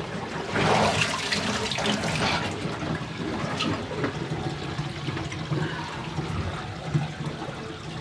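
Rinse water draining from a Giantex twin-tub portable washing machine: a steady stream pouring from its drain hose into a bathtub drain, a little stronger in the first two seconds.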